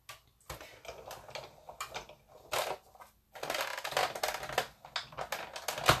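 Sizzix Big Shot die-cutting machine: the plastic cutting plates on the magnetic platform are slid along its tray and cranked through the rollers by hand. It makes an uneven run of clicks and knocks, densest about four seconds in.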